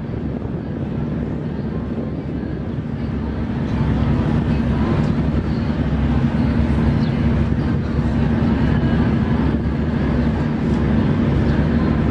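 A motor vehicle's engine running steadily with street noise around it, getting louder about four seconds in.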